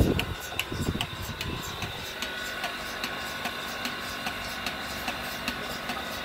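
Bucket milking machine running: its pulsator clicks evenly, about two and a half times a second, over a steady hum from the vacuum pump. A heavier low rumble fades out over the first two seconds.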